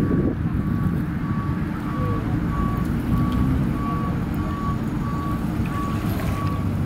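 A vehicle's reversing alarm beeping at an even pace, about twice a second, over a heavy rumble of wind on the microphone.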